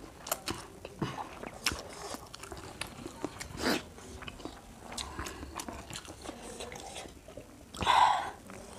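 Eating sounds of crispy fried chicken and spicy noodles being bitten and chewed, with many short sharp crunches and clicks. Near the end comes one louder drinking sound as a drink is gulped from a glass.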